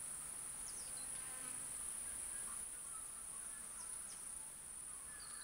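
Steady high-pitched drone of insects, with a few faint short chirps over it.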